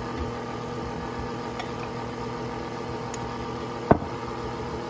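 KitchenAid Artisan stand mixer running steadily on low speed, its flat beater turning cake batter in a stainless steel bowl. A single sharp tap sounds near the end.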